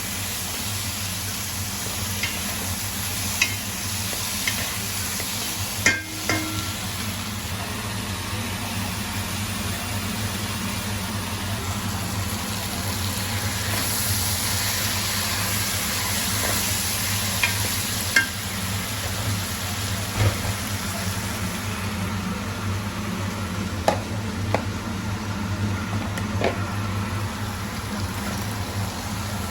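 Food sizzling in a pan as it is stirred, with scattered sharp clinks of a utensil against the pan over a steady low hum.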